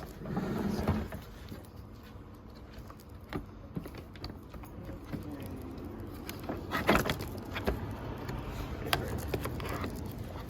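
Handling clatter of plastic vacuum cleaner parts and attachments: scattered clicks, knocks and light rattles, with a louder knock about seven seconds in.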